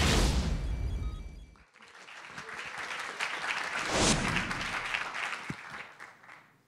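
A brief intro music sting with a deep bass rumble, cut off after under two seconds, followed by audience applause that swells and then dies away.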